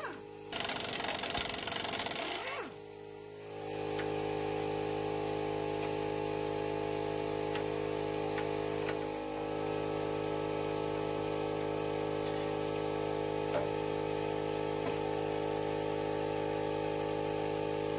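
Impact wrench rattling on the lower control arm's 21 mm bolts in two bursts over the first couple of seconds, with a brief gap between them. After that, a steady hum of several held tones.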